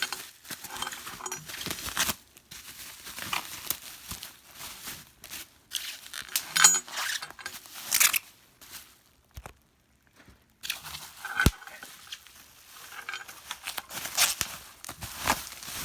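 Packing tape and plastic wrapping being torn and crumpled by hand in irregular bursts. There is a pause of about a second a little past halfway, followed by a single sharp tap.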